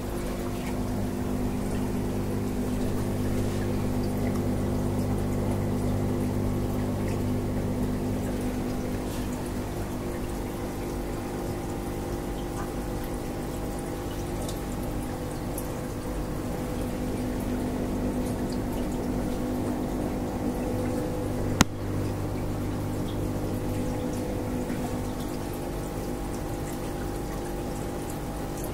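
Aquarium pump humming steadily, with water trickling and bubbling in the tank. A single sharp click about twenty-two seconds in.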